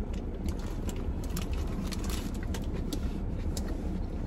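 Close-miked eating: chewing with scattered sharp mouth clicks and smacks, irregularly spaced, over a steady low hum.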